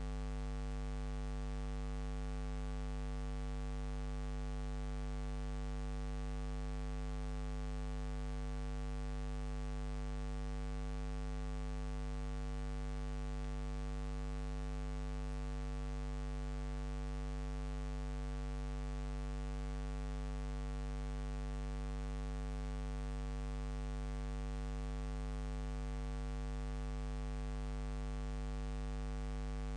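Steady electrical mains hum with a stack of overtones over faint hiss, unchanging throughout.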